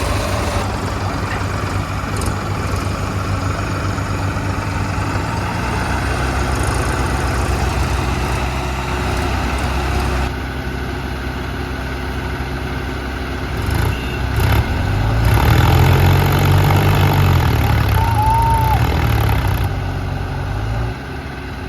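Heavy diesel engine running steadily, then revving up about fifteen seconds in and easing back down near the end.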